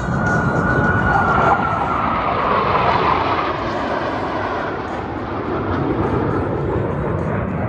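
Jet roar from a Blue Angels F/A-18 Super Hornet flying past, a steady rumble with a high whine that falls slowly in pitch over the first few seconds.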